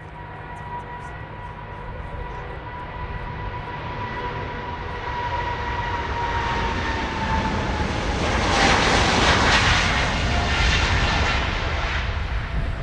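Boeing 777-200's GE90 jet engines at take-off power as the airliner departs past. The noise builds steadily, with a high engine whine that drops in pitch as it goes by. The roar is loudest about eight to eleven seconds in, then begins to fade.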